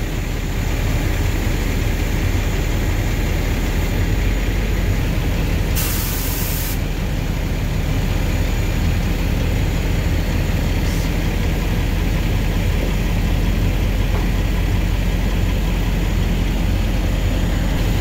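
Old log truck's diesel engine running steadily while its loader crane works, lifting a log bunk. A short hiss comes about six seconds in.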